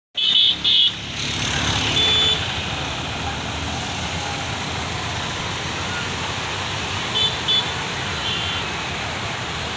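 Water pouring down the stepped overflow weir of a brimming lake: a steady rushing noise. A few short high-pitched beeps cut in over it, two near the start, one about two seconds in, and two more about seven seconds in.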